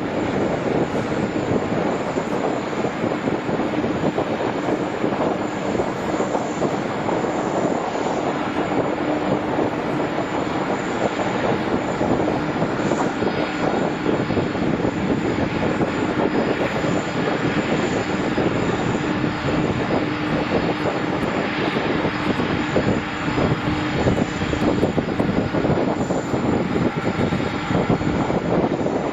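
Airliner engines running with a steady, even noise, carrying a constant low hum that neither rises nor falls.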